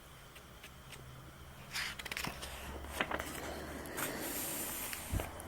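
Faint background noise in a pause: a low steady hum with soft rustling and a few small clicks.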